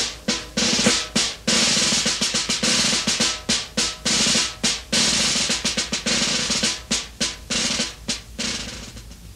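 Instrumental close of a pre-1975 Vietnamese nhạc vàng song: busy, rapid drumming with snare-drum rolls over the band, growing quieter as the track fades out and cuts off at the very end.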